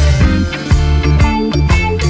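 Background music with a steady beat, bass and guitar, in a reggae-funk style.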